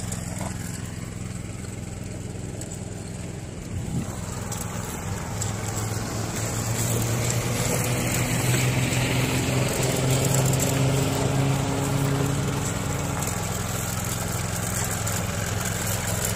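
Yanmar AP4 walk-behind rice transplanter's small engine running steadily while the machine plants seedlings in the flooded paddy, growing louder about six seconds in.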